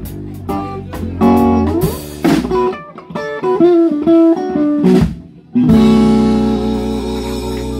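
Live rock band (electric guitar, electric bass and drum kit) playing the close of a rockabilly song: short guitar phrases and stop-time hits, a brief gap about five seconds in, then a final chord held and ringing out.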